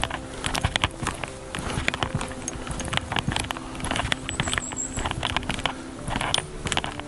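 Footsteps on a forest path: a quick, irregular run of short scrapes and knocks.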